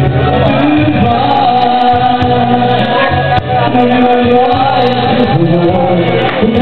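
Live singing over instrumental accompaniment, with long held vocal notes.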